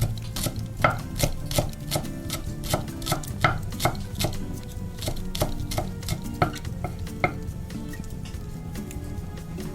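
Kitchen knife chopping food on a cutting board in quick, regular strokes, about two to three a second, thinning out after about seven seconds.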